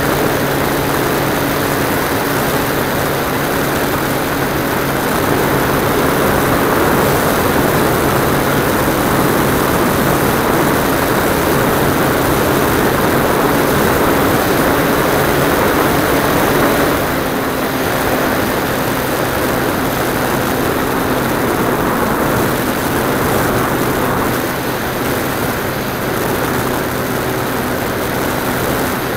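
Propeller aircraft engine running steadily, heard from on board with the rush of air. About seventeen seconds in, its note and loudness drop slightly.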